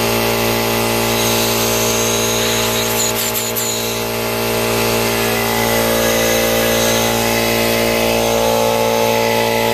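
Central Pneumatic 21-gallon cast-iron, oil-lubricated vertical air compressor running steadily during its break-in, with air blowing freely out of the open hose end. A few light clicks come about three seconds in.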